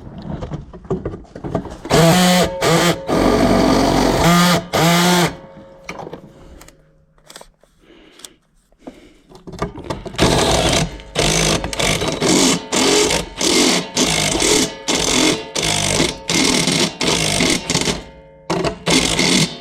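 Power drill with a step drill bit cutting a hole through the sheet-metal sub panel enclosure. It runs in one long spell near the start, then in a string of short trigger bursts from about halfway on, as the hole is widened a step at a time so it is not drilled too big.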